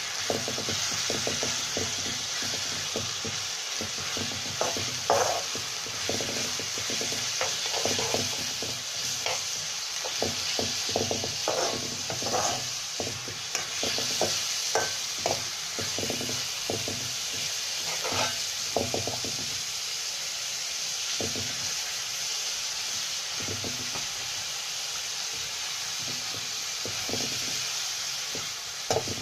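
Raw chicken pieces sizzling in hot oil in a wok with onions and spices, while a metal spoon stirs and scrapes against the pan. The spoon's scrapes and knocks come thick and fast for most of the time and thin out near the end, over a steady sizzle.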